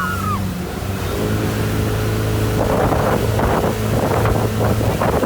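Motorboat engine running steadily at speed, with wind buffeting the microphone and water rushing; gusty rushing noise grows louder about halfway through.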